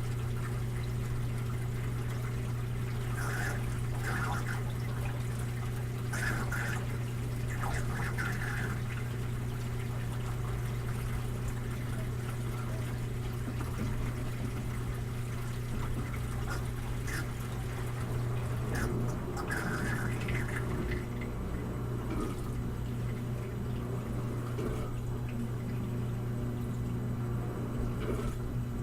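Washing machine draining: a steady hum from the pump, with water gurgling and splashing out in bursts now and then.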